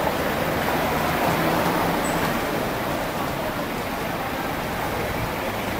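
Steady road traffic noise from cars and taxis moving slowly along a busy street, with a faint low engine hum from about half a second in to about two and a half seconds in.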